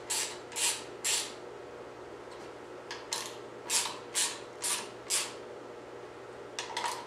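Hand ratchet clicking in short strokes about two a second as breather bolts are run down to snug: three strokes, a pause of about two seconds, five more, then a quicker flurry near the end.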